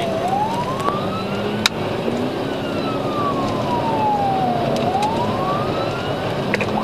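Police siren on a slow wail, its pitch sliding down and rising back up in long sweeps, twice through, heard from inside the patrol car over steady road noise. A single sharp click about a second and a half in.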